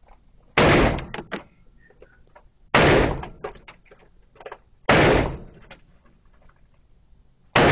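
Four gunshots fired at a steady pace, about two seconds apart, each a sharp crack with a short echoing tail.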